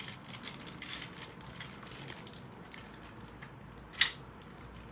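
Toy-train packaging being handled and pried at by hand: a scatter of small crinkles and clicks, with one sharp snap about four seconds in.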